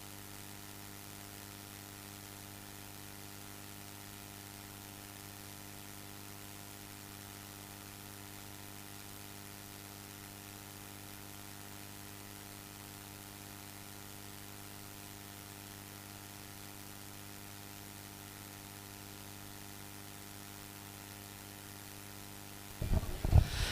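Steady electrical mains hum with a faint hiss on the audio line: a low hum with several fixed higher overtones and no other change. Louder, irregular sound breaks in just before the end.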